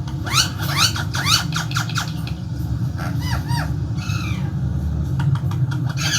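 Parrot calling: a quick run of short rising squawks in the first two seconds, a few arching calls near the middle, and more near the end, over a steady low rumble.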